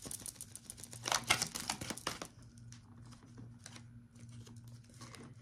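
Tarot cards being shuffled and handled: a quick, dense run of card clicks and flutters for about two seconds, then scattered softer taps.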